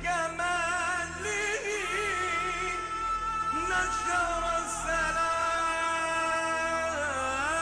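A male solo voice sings an Arabic devotional song, a run of quick ornamented turns followed by one long held note, over a steady sustained accompaniment.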